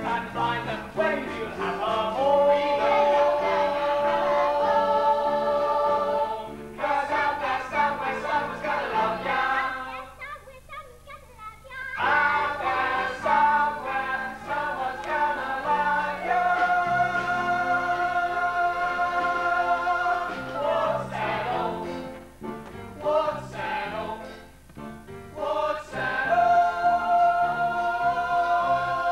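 Musical-theatre ensemble singing with instrumental accompaniment, several voices together holding long notes. The music drops away briefly about ten seconds in and dips again a little past twenty seconds.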